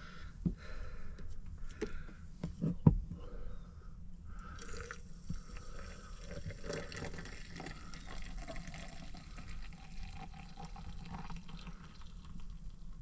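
Water in a Jetboil stove's cup: a few sharp clicks and knocks of handling, then from about four seconds in a steady pouring, filling hiss whose faint tone rises a little near the end.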